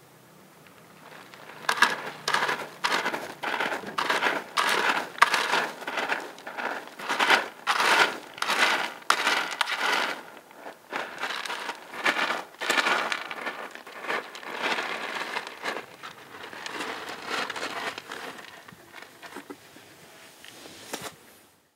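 A kitten digging and scratching in pellet cat litter in a plastic tray, the pellets rattling and crunching in quick strokes about twice a second, growing fainter toward the end.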